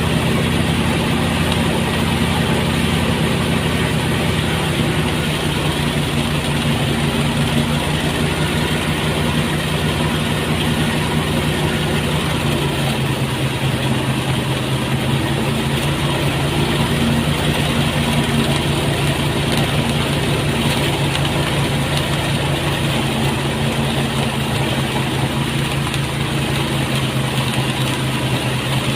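Motorised rice threshing machine running steadily: a constant engine hum under a dense rushing rattle. The engine note settles slightly lower about twelve seconds in.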